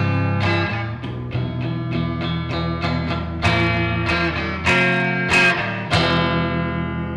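Instrumental guitar outro: plucked and strummed guitar chords, each struck sharply and left ringing, with no singing.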